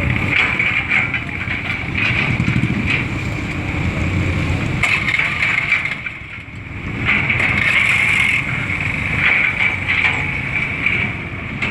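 Heavy machinery working on the flood-damaged road: a large engine running, with a steady high-pitched whine on top that rises and falls, and a brief lull about halfway through.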